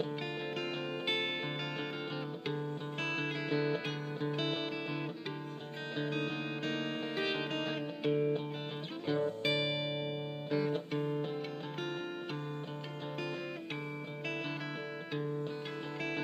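Background guitar music, a run of plucked notes and chords.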